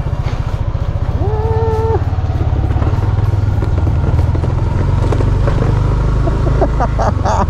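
Motorcycle engine running steadily on the move, a low rumble of rapid firing pulses throughout. A single held tone sounds for under a second about a second in.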